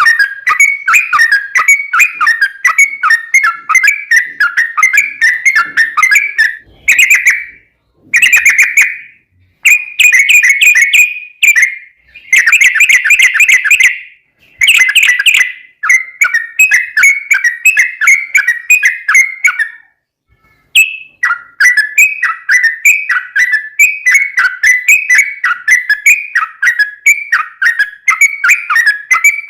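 Yellow-vented bulbul (trucukan) singing long, rapid runs of short bubbly notes. The runs break off a few times, with a longer pause about twenty seconds in.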